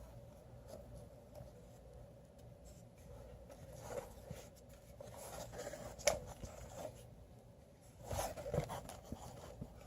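Faint handling of a plastic action figure: soft scrapes and a few light clicks as its parts are moved, with a sharper click about six seconds in and a short cluster of taps near the end.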